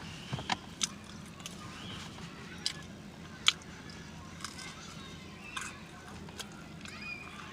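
Close-miked mouth sounds of someone eating fast food: wet lip smacks and chewing clicks come at irregular intervals, with one sharp smack about three and a half seconds in standing out as the loudest.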